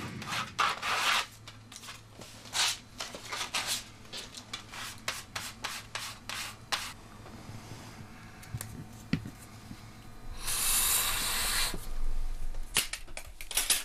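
A plastic card scraping and tapping on a flat plate, chopping crystal meth powder and pushing it into a line: many short scrapes and taps for about seven seconds. A little after ten seconds in comes a loud sniff lasting about a second and a half as the line is snorted, followed by a few soft clicks.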